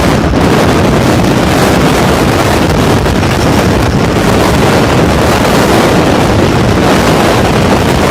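Heavy wind buffeting the microphone in a strong, constant wind: a loud, steady rumbling roar that masks everything else.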